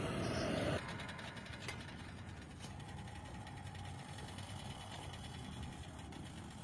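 Steady, fairly quiet engine-like hum with a few faint clicks. A louder noisy stretch cuts off abruptly under a second in.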